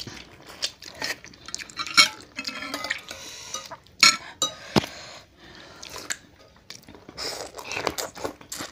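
Metal spoons and forks clinking against ceramic bowls of noodle soup, with a few sharp clinks, the loudest about two and four seconds in. Between them come softer eating sounds: broth being scooped and noodles slurped.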